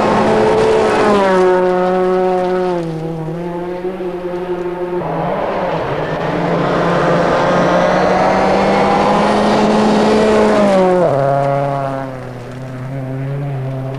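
Two World Rally Cars flat out on a gravel stage, one after the other: a Ford Focus RS WRC, then a Peugeot 206 WRC, each a 2.0-litre turbocharged four-cylinder. Each engine note drops sharply in pitch as the car passes close by, about a second in and again about eleven seconds in.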